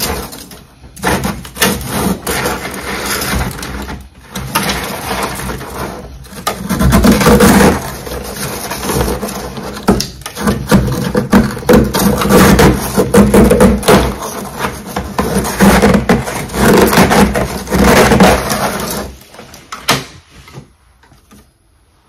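Close, loud crunching and crackling of freezer frost: a dense, irregular run of crisp crunches in clusters that stops about twenty seconds in.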